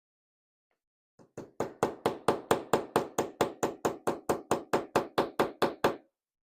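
Rapid, even hammer taps driving a tool into a small cam lock, about twenty strikes at roughly four or five a second, working it in to pry the cap off.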